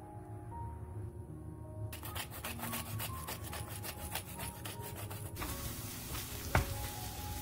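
Pepper mill being twisted, a fast even run of dry grating clicks for about three and a half seconds. Then a wooden spatula starts stirring in the wok with a soft sizzle.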